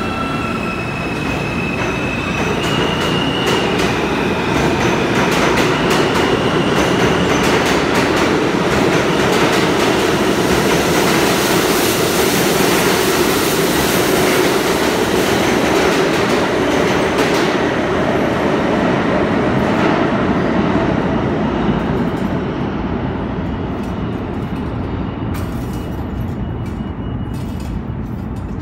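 New York City subway train passing through the station on a far track: a loud rumble of wheels with clacking over the rail joints and a brief high squeal in the first few seconds. The noise fades away after about twenty seconds, leaving a few scattered clacks.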